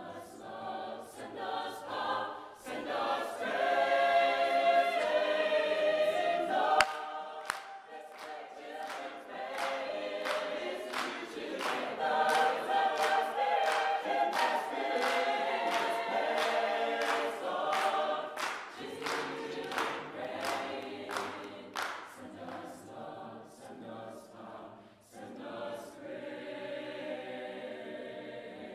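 Mixed chamber choir singing in harmony while the singers clap their hands on a steady beat. The clapping stops a few seconds before the end and the singing carries on.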